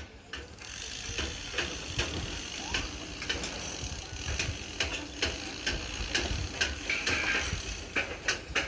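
Irregular light clicks, knocks and clinks of hand work on formwork and rebar, with a low rumble underneath.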